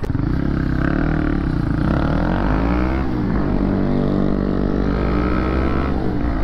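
Motorcycle engine accelerating under load, its pitch climbing, dropping back about three seconds in, then climbing again before it falls away near the end.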